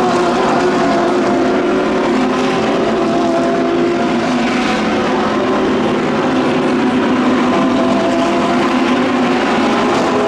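A pack of GT3 race cars at racing speed, several engines at once, making a steady, loud mix of overlapping engine notes with no single car standing out.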